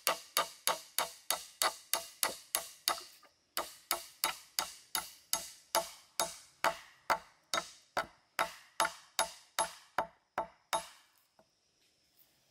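A steel nail being hammered into a freshly cut log post to fix it onto a stump: sharp, evenly spaced blows about three a second, in runs broken by short pauses, stopping near the end.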